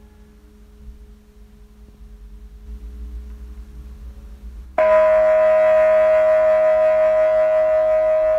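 A faint steady hum, then about five seconds in a loud sustained musical drone of several tones starts abruptly and holds steady with a slight waver.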